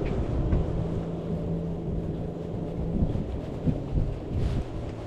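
Wind buffeting the microphone as a low, rough rumble, with a steady low hum from about half a second in until about three seconds in.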